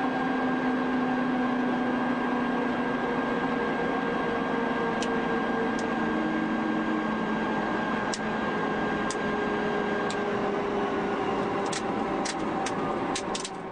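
Helicopter cockpit noise: the steady whine and hum of the turbines and rotor, with tones that slowly drop in pitch, and sharp clicks of cockpit switches being flipped, several in quick succession near the end.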